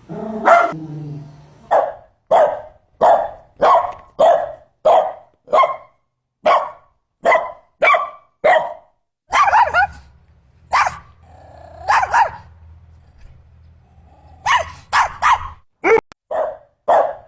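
Poodle barking: a steady run of short, sharp barks about every half second, then a few scattered barks, and a quick flurry of barks near the end. A faint low hum lies under the middle barks.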